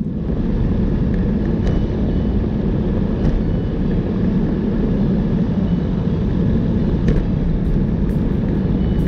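Wind buffeting the bike-mounted camera's microphone while riding at speed: a loud, steady low rumble, with a few faint ticks.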